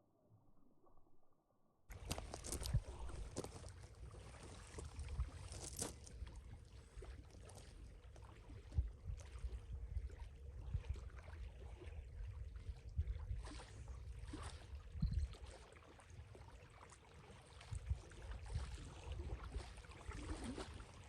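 Wind buffeting the microphone in uneven gusts, with water lapping and scattered small knocks. It starts abruptly about two seconds in, after near silence.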